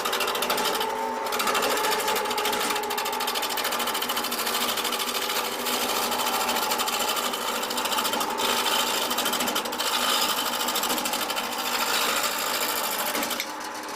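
A small workshop machine running steadily with a fast, even rattle, stopping near the end.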